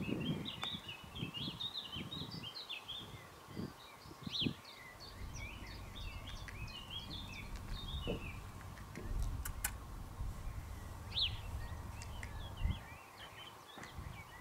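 Birds chirping and twittering in many short quick calls, thickest in the first half, with a few soft thuds of a horse's hooves in sand. A low rumble of wind on the microphone sets in about five seconds in.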